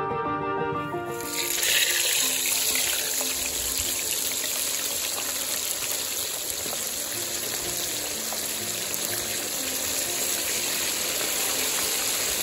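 Hot oil sizzling and crackling hard as whole mojarra fish deep-fry, starting about a second in and holding steady, over soft background music.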